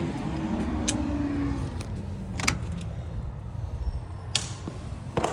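House front door being unlocked and opened: a handful of sharp clicks and knocks, the loudest about two and a half seconds in and again near the end, over a low steady rumble.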